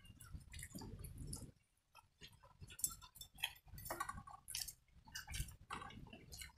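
People eating by hand: quiet chewing and the wet sound of fingers mixing watered rice (pakhala) in steel bowls, with a scatter of small irregular clicks.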